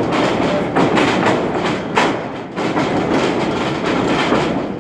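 Wrestling ring thudding and rattling as the wrestlers move and fall on the canvas-covered boards, with a sharp slam about two seconds in.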